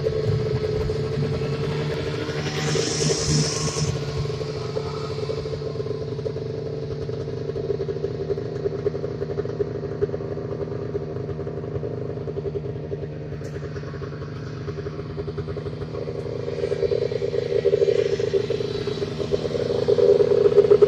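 Snowmobile engine running steadily, then growing louder over the last few seconds as a sled rides by close.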